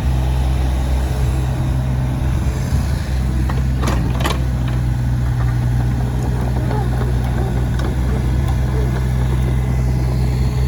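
Komatsu PC35MR-3 mini excavator's diesel engine running steadily, with two short sharp clacks about four seconds in.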